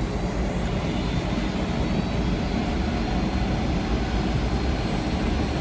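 Airplane taking off: a steady, deep rumble of engine noise.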